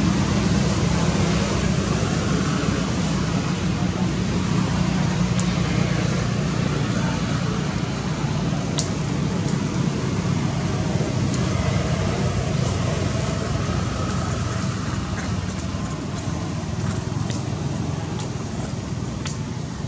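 Steady outdoor background noise, a low rumble with hiss, with a few faint clicks scattered through it.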